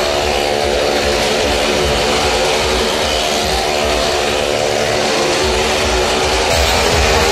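A loud, steady engine drone that holds without a break.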